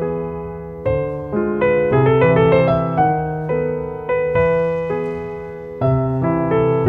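Solo classical piece on a Steinway grand piano: struck notes and chords that ring and fade, with a strong new chord about a second in and another near six seconds.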